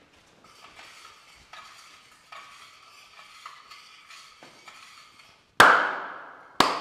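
A spoon stirring and scraping in a dish or glass with short, faint, repeated strokes. About five and a half seconds in come two loud, sudden hits about a second apart, each ringing and slowly dying away.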